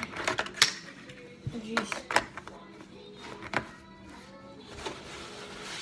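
A few sharp clicks and knocks of kitchen things being handled, about four over a few seconds, with music playing underneath.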